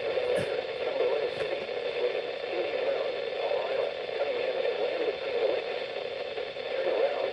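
Radio broadcast received with heavy static: a steady hiss and crackle, with a voice faintly buried under it.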